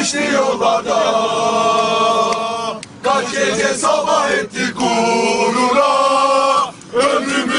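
A football terrace chant sung in unison by many male voices, in long held phrases with short breaks about three and seven seconds in.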